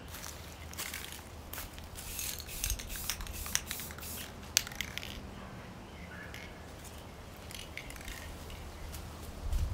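Aerosol spray-paint can hissing in short bursts, mixed with sharp clicks and handling noises, a few seconds in and again near the end.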